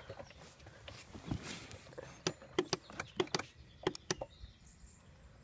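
A quad bike that won't start gives a run of sharp, irregular clicks from about two seconds in as the start button is pressed, with no engine turning over. The rider takes the click to come from the starter.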